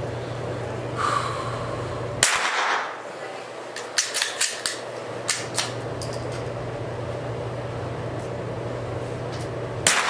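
Two .22 LR rifle shots from a Ruger Precision Rimfire, one about two seconds in and one near the end, each followed by a brief echo in the room. A run of lighter sharp clicks falls between them, over a steady low hum.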